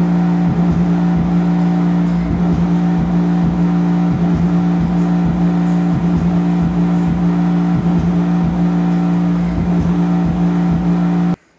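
Philips wall-mounted speaker playing a loud, steady low bass drone from a bass test track, a held low note with a few overtones and an uneven low pulsing beneath it, cutting off suddenly near the end.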